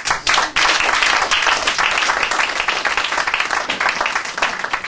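Audience applauding, a dense clatter of many hands that starts sharply and tails off near the end.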